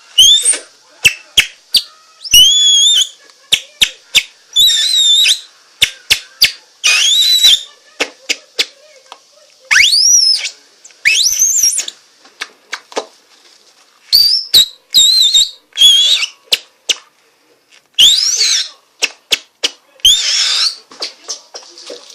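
Shrill, squealing whistles blown across a strip of plastic bag stretched taut between the hands: about a dozen short calls, many sliding up and then down in pitch, with sharp crackling clicks of the plastic between them.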